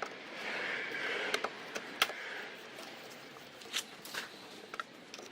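Phillips screwdriver backing out the screws that hold a Kia Rio tail light assembly: light scraping for the first couple of seconds, then scattered sharp clicks of the tool against the screw heads and plastic.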